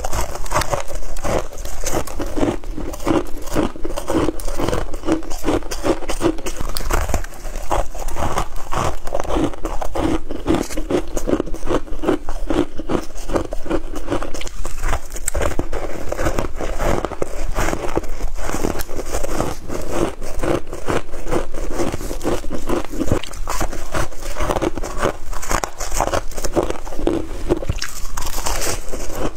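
Close-miked biting and chewing of soft freezer frost chunks: dense, continuous crunching.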